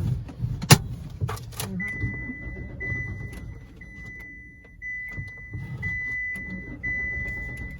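A sharp click, then a car's electronic warning chime beeping about once a second in a steady high tone, over a low rumble.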